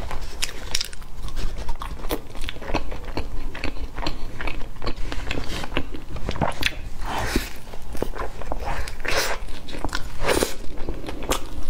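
Close-miked chewing of a soft frosted donut: wet mouth and lip smacks with many small clicks, and a fresh bite taken near the end.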